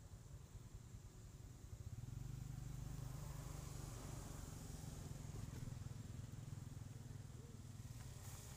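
Faint low rumble that swells about two seconds in and eases near the end.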